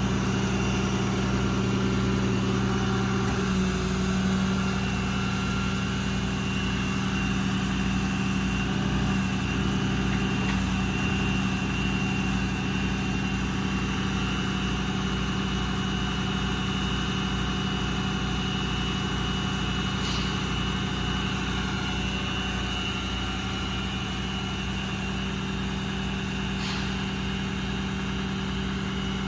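Ram 5500's 6.7 Cummins diesel engine idling steadily, its note shifting slightly about three seconds in.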